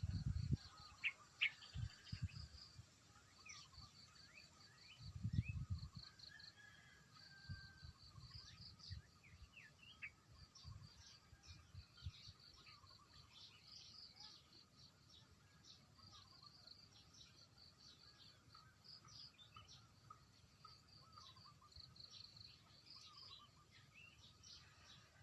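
Faint outdoor ambience of small birds chirping in many short calls over a steady pulsing high trill, with a few low rumbles near the start and about five seconds in.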